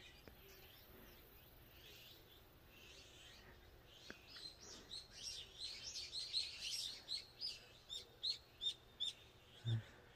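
A small songbird singing. A rapid jumble of high chirps builds up about halfway through, then gives way to a run of short high notes, about three a second. A brief low thump comes just before the end.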